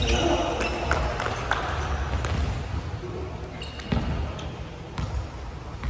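A volleyball being struck and bouncing on a wooden gym floor: a handful of sharp thuds at uneven intervals.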